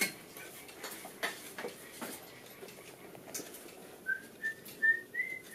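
Light metallic clicks and knocks of hand tools working on a bicycle on a repair stand. Near the end comes a quick run of about five short high chirps that step slightly upward in pitch.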